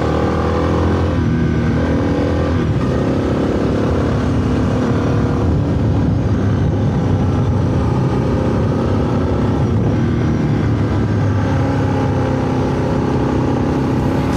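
Motorcycle engine heard from on board while riding: the revs climb and drop several times as it pulls through the gears, with wind noise on the microphone.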